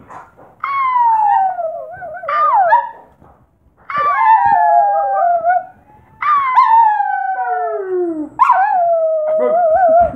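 Small dog howling: four long, drawn-out howls, each starting high and sliding down in pitch with a wavering end, with short breaks between them.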